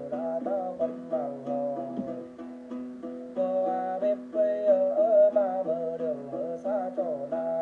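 Then ritual chant sung by a man to his own đàn tính, a long-necked gourd lute, over a steady low plucked accompaniment; the voice wavers and bends in pitch.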